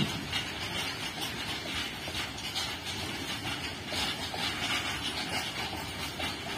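Loaded open-top freight wagons rolling past on an Indian Railways line: a steady rumble of the rake with irregular metallic wheel clatter.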